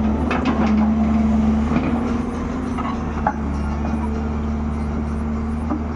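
Heavy earthmoving machine's engine running steadily while cutting soil for a road, with a few sharp metallic knocks near the start and about three seconds in.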